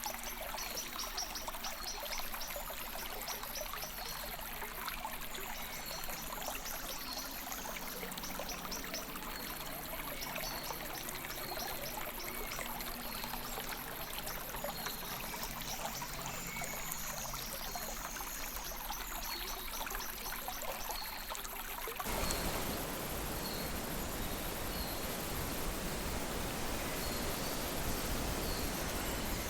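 Spring river water rushing and burbling steadily, with faint short high chirps repeating about once a second. About 22 seconds in the sound changes abruptly to a louder, fuller and deeper rush.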